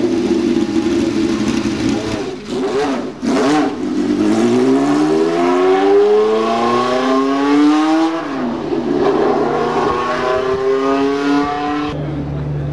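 Inaltera Le Mans race car's engine running, blipped with the pitch swinging up and down, then pulling away hard: the pitch climbs, drops at a gear change about eight seconds in, and climbs again. Near the end it cuts to a Ferrari 512 BB LM's flat-twelve idling steadily.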